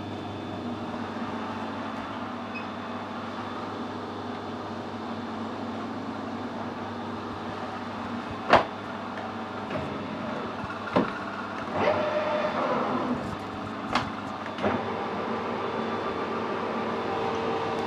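Metal lathe: a steady hum, broken by a loud sharp click about halfway through and a run of clicks and clunks a few seconds later. The chuck then spins up, and a steady running tone holds to the end.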